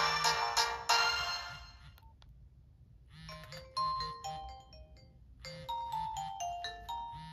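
Nokia X1 ringtones: a busy, many-note tune fades out in the first second or two, and after a short pause a new ringtone starts about three seconds in, a melody of clear single notes stepping down in pitch, its phrase repeating about five and a half seconds in.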